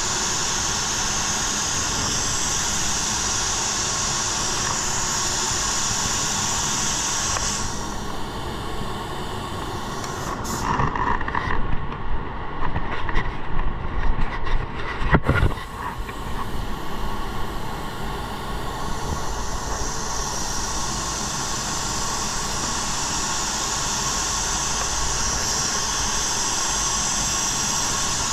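Paint spray gun hissing with compressed air as clear coat is sprayed, over a steady low rumble. The hiss stops about a quarter of the way in, a few seconds of louder irregular knocks and rumbling follow with one sharp click, and the hiss starts again about two-thirds of the way in.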